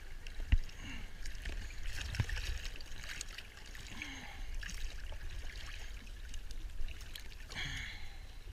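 Lake water sloshing and splashing right at the microphone as a person floats and paddles with his arms, with a sharp knock about half a second in and another about two seconds in.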